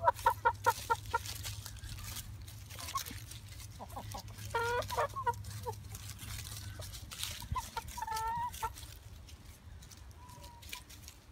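Chickens clucking: a quick run of about half a dozen loud, short clucks at the start, then a few drawn-out calls around five and eight seconds in, and a faint one near the end.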